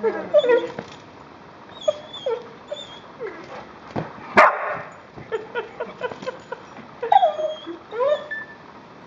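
A one-year-old retradoodle (golden retriever–poodle cross) whining and yipping over and over in short, high cries that rise and fall, excited at a soft toy dog. About four and a half seconds in there is one louder, harsher sound.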